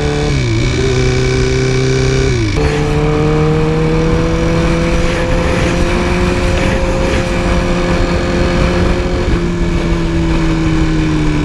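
Motorcycle engine running under way at fairly steady revs. The pitch dips just after the start, jumps higher about two and a half seconds in, and falls off near the end as the revs drop.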